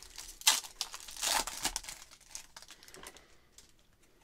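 Plastic wrapper of a 2023 Stadium Club baseball card pack crinkling and tearing as it is opened. The rustling is loudest about half a second in and again around a second and a half, then dies down to faint handling of the cards.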